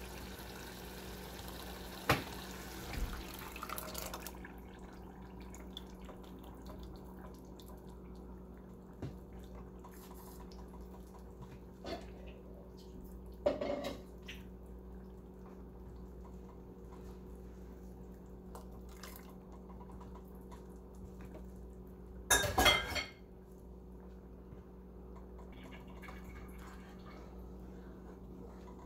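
A wooden spoon stirs a flaxseed mixture into a simmering stew in a nonstick saucepan, scraping and knocking against the pot a few times over a steady low hum. The loudest clatter comes about three-quarters of the way through.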